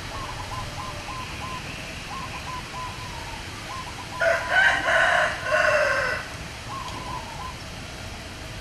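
A rooster crows once, about four seconds in, a loud call of about two seconds. Faint, short, repeated chirping calls are heard before and after it.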